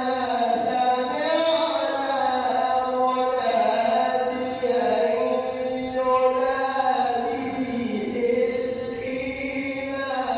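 A man reciting the Quran in the melodic mujawwad (tajweed) style, drawing out long notes that bend slowly up and down.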